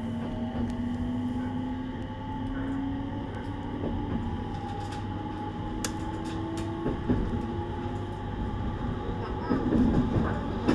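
Onboard running sound of a JR East 701-series electric train accelerating: the traction motors' inverter whine climbs slowly in pitch over the rumble of the wheels on the rails, with a few sharp clicks. The rumble grows louder near the end.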